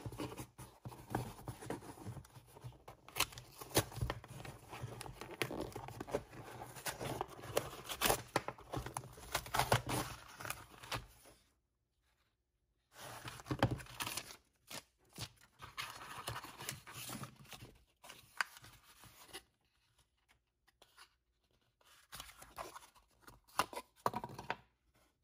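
A cardboard box and its packaging being torn open and handled, with irregular tearing, rustling and small clicks. The sound comes in three spells with two short pauses.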